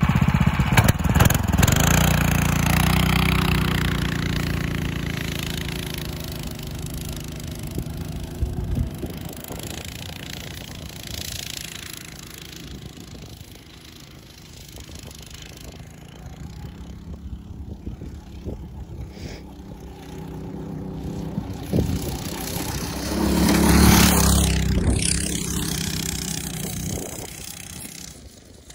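A motorized drift trike's small petrol engine revving and running as it is ridden. It is loud at first and fades as the trike moves away, grows loud again about two-thirds of the way through, then fades.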